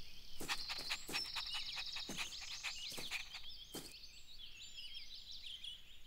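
Birdsong ambience: many short chirps and twitters throughout, with a scatter of short clicks or taps in the first four seconds.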